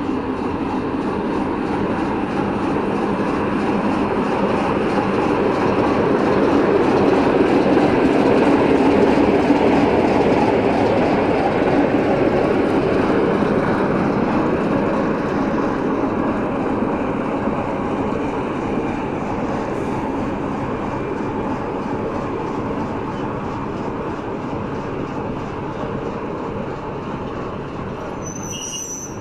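Diesel-hydraulic shunting locomotive (CFR class LDH) running and moving along the track. Its steady rumble swells to a peak about eight seconds in, then slowly fades.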